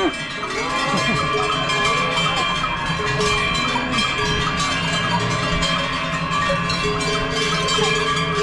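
Many cowbells hung on the necks of a herd of cows ring and clang together without pause as the cows walk past close by.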